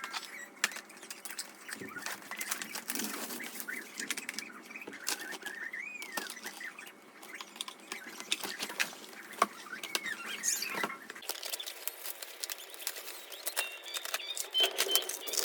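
Plastic packaging and parts being handled: a continuous run of rustling with many small sharp clicks and taps.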